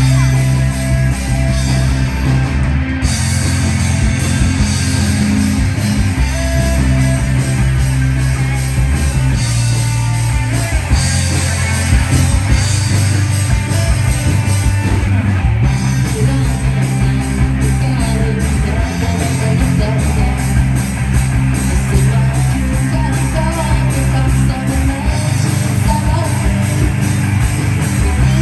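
Live amplified rock band playing: electric guitars, bass guitar and drums through the stage PA, continuous and loud.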